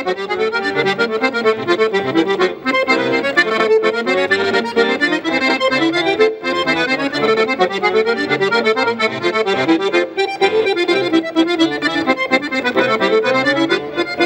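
Piermaria chromatic button accordion played solo: a fast, busy melody of many short notes over lower bass notes, with brief breaks about two and a half, six and ten seconds in.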